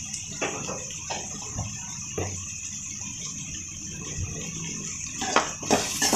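Chopped onions and shallots sizzling in hot sesame oil in a kadai: a steady hiss with a few faint crackles. Near the end a spoon stirs and scrapes through them against the pan.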